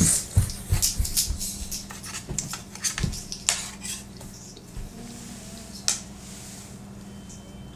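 Metal fork clinking and scraping against a plate while eating, a quick run of taps in the first few seconds, then a few scattered clinks.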